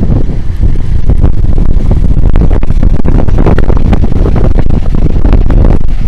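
Heavy wind buffeting the microphone: a loud, uneven low rumble with gusty crackles throughout.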